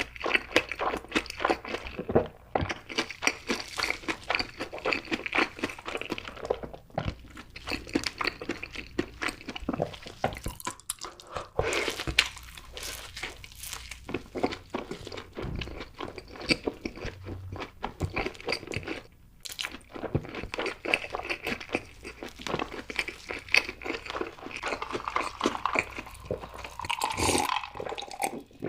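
Close-miked eating: crunchy bites and chewing of fried food, with dense crackling crunches and a few short pauses.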